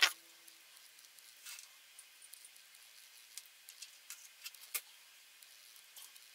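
Faint, scattered light clicks and taps of small parts being handled as a boost-converter circuit board and its wires are fitted into a clear plastic tube housing, with one sharper click about three-quarters of the way through.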